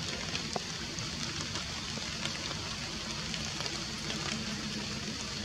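Steady outdoor forest background hiss with many faint scattered ticks, like light patter on leaves, and one brief thin chirp about half a second in.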